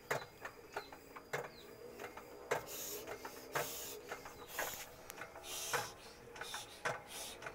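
Irregular metal clicks and knocks from the levers and crank fitting of a stopped 10 hp stationary diesel engine being handled, with a couple of short hissing rustles; the engine is not running.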